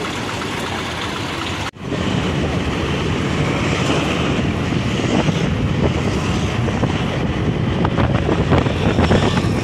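Steady vehicle noise. About two seconds in the sound cuts out for an instant, then runs louder: engine and road rumble from a moving vehicle, with wind buffeting the microphone.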